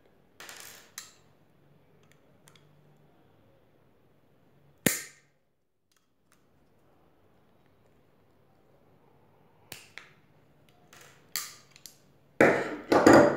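Steel pliers and hands working the metal casing of a 9-volt battery, making scattered sharp clicks and snaps, with one sharp snap about five seconds in. Near the end comes a loud second of crackling and scraping.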